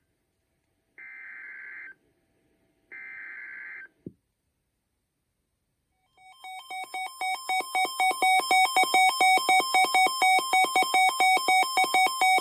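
EAS (SAME) digital header from a NOAA Weather Radio transmitter: two buzzy data bursts of about a second each, a second apart. After a short silence, a weather alert alarm starts beeping rapidly, switching between two pitches and growing louder over its first couple of seconds, then holding steady.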